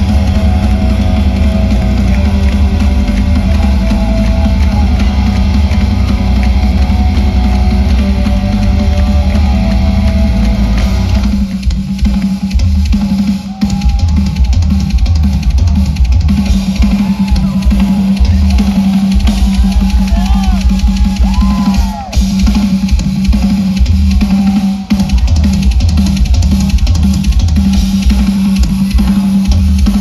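Live metal band playing with rapid kick drum. About eleven seconds in the guitars drop out and the drum kit carries on alone in a drum solo: fast kick drum under snare and cymbals.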